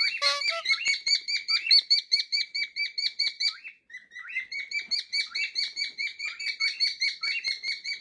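Cockatiels chirping in a fast, even series of short calls, about six a second, with a brief pause a little before halfway.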